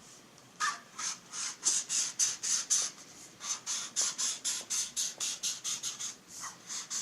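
Huben K1 air rifle silencer being worked off the barrel, squeaking and rubbing against it in quick repeated strokes, about four a second, which start about half a second in and die away shortly before the end.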